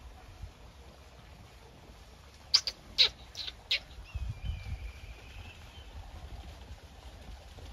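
A quick run of about five short, sharp, high-pitched animal calls, one sliding downward, about two and a half seconds in, followed by a faint high whistle-like call.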